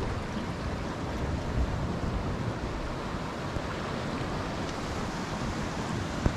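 Ocean surf washing against coastal rocks, a steady rushing with wind buffeting the microphone. A single sharp knock near the end.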